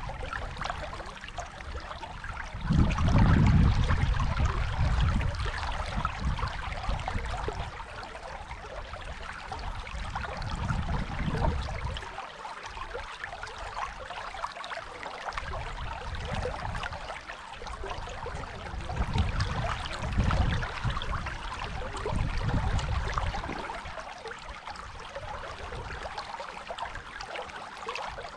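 Rushing water of the Dunajec river, a steady hiss, with low rumbles that come and go, the strongest about three seconds in.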